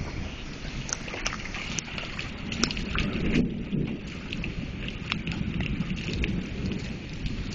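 Rain falling with scattered sharp drops striking close by, over a low rumble that swells about three seconds in.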